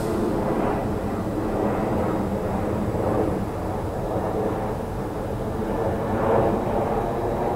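Steady engine drone with several shifting tones over a low rumble, holding at a constant level.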